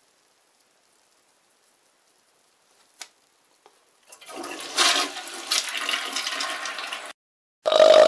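A sharp click, then about three seconds of rushing water that cuts off suddenly. Near the end a louder, steady pitched sound begins.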